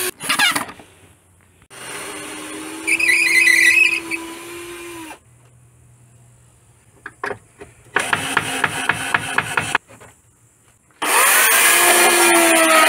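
Cordless drill-driver running in bursts as screws are driven into wooden boards, one burst ending in a quick run of even clicks. About eleven seconds in, a Makita chainsaw starts at once at full speed and cuts into a wooden post.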